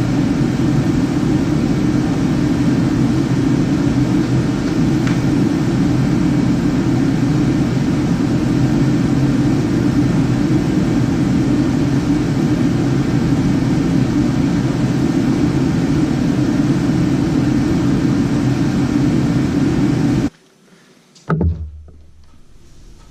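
A power tool runs steadily while stripping old sealant off the aluminium canopy bow. It cuts off suddenly about 20 seconds in, leaving a few faint knocks.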